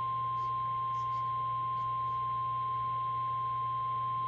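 Weather-radio warning alarm tone, a single steady 1050 Hz tone held without a break, signalling that a severe thunderstorm warning follows. A low steady hum runs beneath it.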